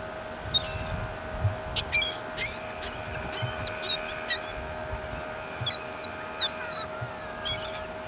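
Gulls calling: a dozen or so short, sharp cries in quick succession, over a steady hum.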